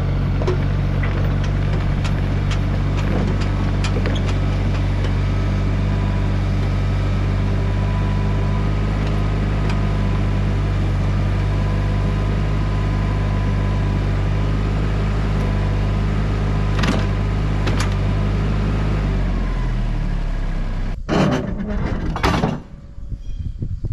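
An engine running at a steady speed, then winding down and stopping about twenty seconds in, followed by two loud clunks.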